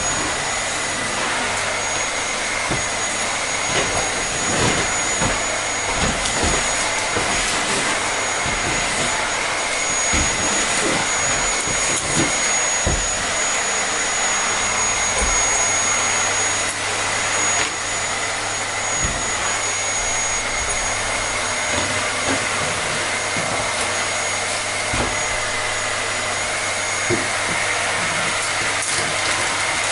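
Vacuum cleaner running steadily: an even rushing hiss with a high motor whine that wavers slightly in pitch.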